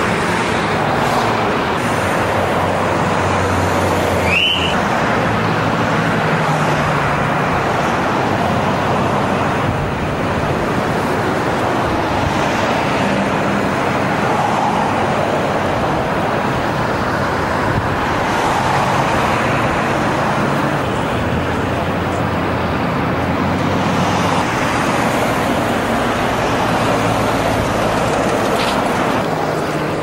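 City street traffic: cars and buses passing, their engine hum swelling and fading as each goes by, with a brief high rising squeak about four seconds in.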